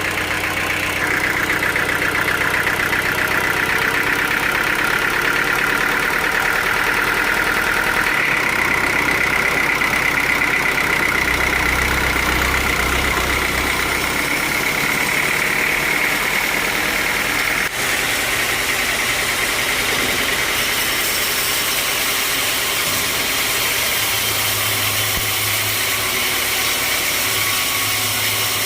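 Sawmill machinery running steadily: a low engine hum under a high, steady whine, with a brief drop about halfway through, after which the whine fades.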